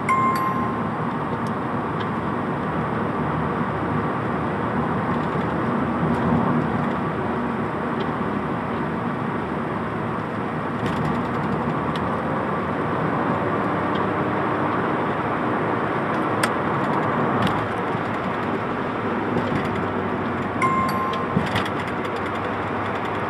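Steady engine and tyre noise heard from inside a small car's cabin as it drives down a wet road. A short electronic beep sounds at the start and again near the end.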